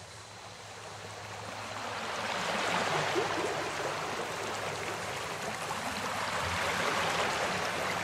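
Steady rush of running water from hoses washing carrots, fading up over the first three seconds and then holding level.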